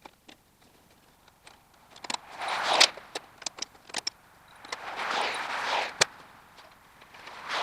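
Hand work on rear-suspension hardware: scattered light metallic clinks and taps of nuts, washers and tools, with two longer swells of rushing noise about two and five seconds in and a sharp knock about six seconds in.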